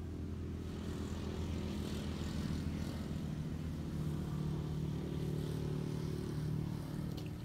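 A steady motor drone, its pitch stepping down a little about three seconds in, with a few faint clicks near the end.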